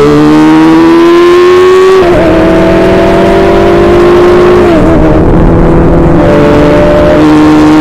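Open-wheel race car engine at racing speed, heard from the cockpit. Its pitch climbs and drops sharply about two seconds in as it shifts up, holds fairly level, then falls and wavers about halfway through as the car slows for a corner, before picking up again. A steady rush of wind and road noise runs under it.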